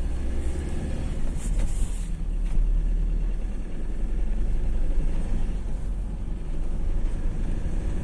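Ford Transit Custom's 2.2 TDCi diesel engine running steadily, with the engine knock that the video is about. There is a brief brighter burst about one and a half seconds in.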